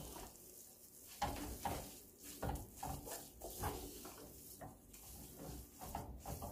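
Wooden spoon stirring and tossing rice vermicelli in a large stainless steel pot, with irregular soft knocks and scrapes against the pot.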